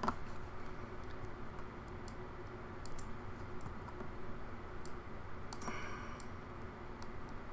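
A few sparse, separate clicks of a computer mouse and keyboard over a faint steady room hum.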